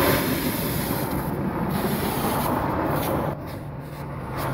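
Oxy-fuel torch flame burning with a loud steady hiss, heating a seized vise to free it. The hiss starts suddenly and drops away about three seconds in as the flame is turned down.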